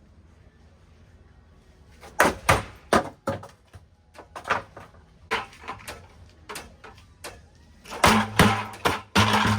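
A ceiling fan being smashed: a run of sharp knocks and clattering impacts in bursts, starting about two seconds in, with the densest and loudest bunch near the end.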